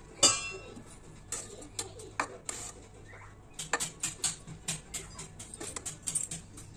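A metal pot lid clinks sharply just after the start, then a metal spoon scrapes and taps against the aluminium pot in quick short clicks while turning over cooked dum biryani rice.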